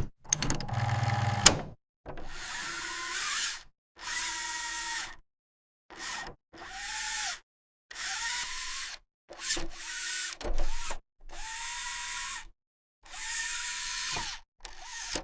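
Small electric motors of a LEGO Technic machine whirring in about ten short bursts, each winding up with a rising whine and then cutting off abruptly.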